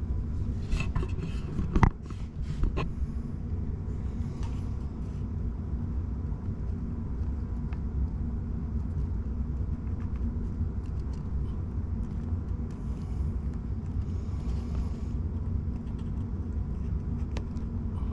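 Hand work on a car headlight assembly while removing its xenon bulb: a cluster of sharp clicks and knocks of plastic and metal parts in the first few seconds, the loudest about two seconds in, then a few faint scrapes, over a steady low hum.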